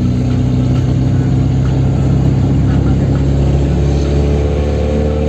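Chevrolet Kadett 1.8 engine running steadily under way, its pitch creeping up slightly near the end.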